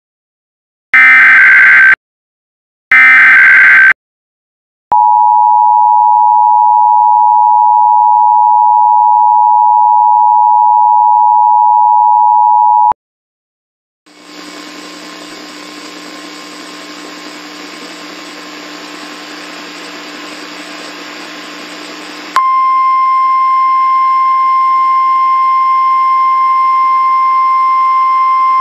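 Emergency Alert System tones: two short harsh bursts of the digital SAME header, then the two-tone attention signal held steadily for about eight seconds. After a brief pause, radio static with faint tones comes in, and about eight seconds later a loud steady single tone starts, the weather-radio warning alarm.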